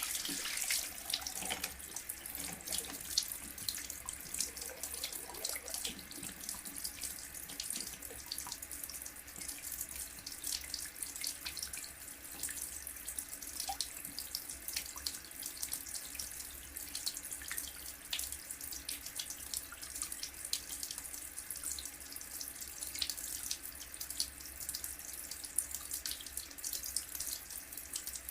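Tap running steadily into a washbasin, water splashing and hissing into the bowl.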